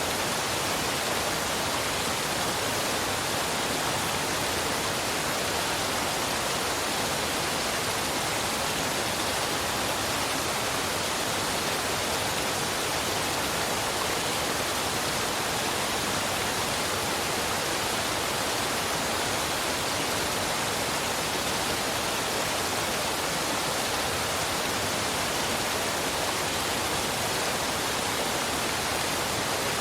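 Waterfall and river water rushing in a steady, even hiss that does not change.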